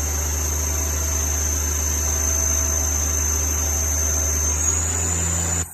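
Hardinge Quest GT-27SP CNC lathe spindle running at high speed: a steady high whine over a deep hum. About four and a half seconds in, the whine rises slightly in pitch as the spindle speeds up from 4,500 toward its 5,000 RPM maximum, then the sound cuts off abruptly.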